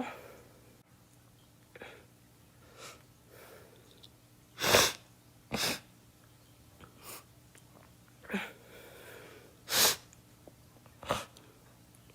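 A girl coughing in a series of short, separate coughs a second or more apart: two loud, sharp ones about five seconds in and another near ten seconds, the rest softer.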